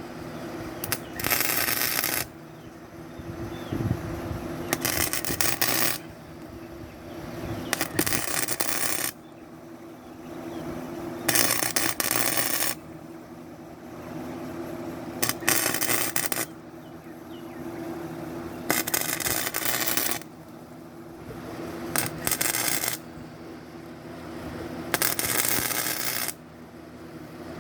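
Gasless flux-core wire welder laying a run of short tack welds on steel flat bar: about eight crackling, sputtering arcs, each a second or so long, struck every three to four seconds, with a steady hum between them.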